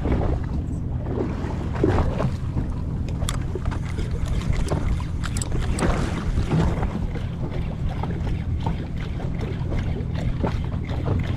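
Fishing boat's engine running steadily, with water slapping and splashing against the hull and wind buffeting the microphone.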